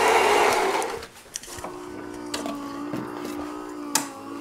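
Gaggia Magenta Milk fully automatic coffee machine running with a steady rushing noise that stops about a second in. A few light clicks follow, with a sharper one near the end.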